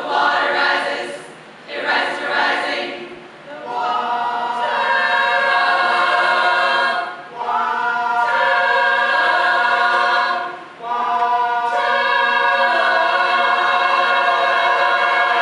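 A cappella choir singing wordless vocal sounds: a few short swelling pulses, then long chords of many voices held on steady pitches, broken twice by brief pauses.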